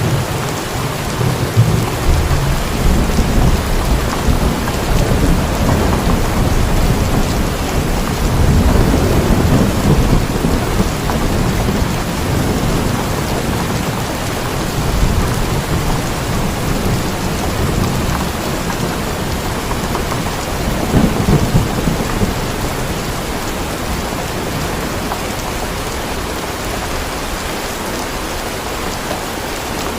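Steady heavy rain with thunder rumbling low underneath, swelling several times and easing off near the end.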